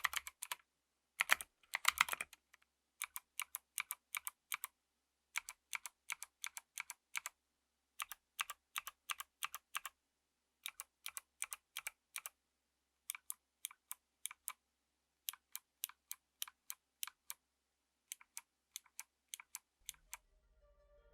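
Keyboard with Kailh Speed Bronze clicky switches: a quick burst of typing, then keys pressed one at a time and bottomed out slowly, each a separate crisp click, about two or three a second in short runs with brief pauses.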